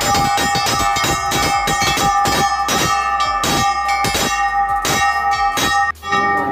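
Large hanging metal temple bells rung by hand, their clappers pulled so that they clang again and again, several strikes a second, over a steady ringing that carries through. The ringing breaks off suddenly about six seconds in.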